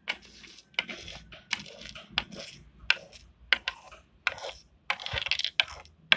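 Small hard plastic toy pieces being picked up, handled and set down on a wooden tabletop, making an irregular series of sharp clicks and light clatters, busiest about five seconds in.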